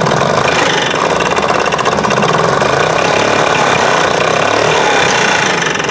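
Yamaha G1 golf cart's two-stroke engine running steadily just after a cold start without a choke, with a popping in its note that the owner suspects comes from a blown head gasket.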